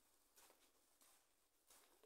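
Near silence, with three faint footsteps of someone walking on the tunnel floor, one about every two-thirds of a second.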